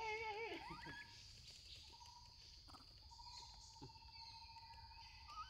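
Young pig-tailed macaque giving a short, wavering, squealing call in the first second, ending in a quick rising glide, followed by near quiet with a faint steady high-pitched hum behind it.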